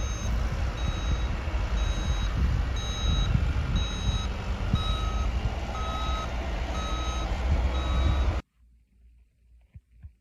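A vehicle's reversing alarm beeping about once a second over a loud low rumble. The sound cuts off suddenly about eight seconds in.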